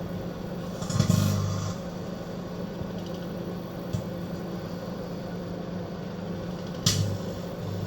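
Microwave oven running with a steady hum while an energy-saving light bulb inside it is being microwaved. Two sudden, sharp bursts of noise with a louder buzz come about a second in and again near the end, as the bulb arcs.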